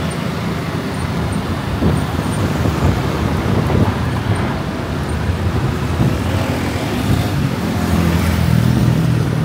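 Steady road traffic: running vehicle engines and tyre noise, with a nearer engine hum coming up about eight seconds in.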